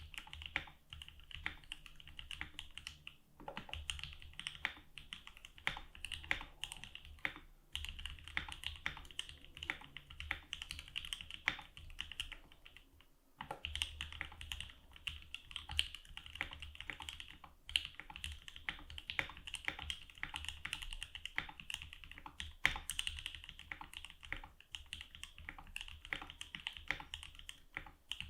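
Continuous typing on a mechanical keyboard with lubed and filmed JWK Durock L3 linear switches, a fast run of keystrokes broken by brief pauses a few times.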